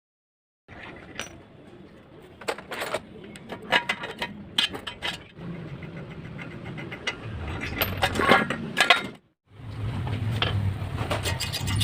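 Metal tools and bicycle parts clinking and knocking during hands-on work on a BMX bike, a series of sharp irregular clicks. After a brief break near the end a steady low hum runs under the clinks.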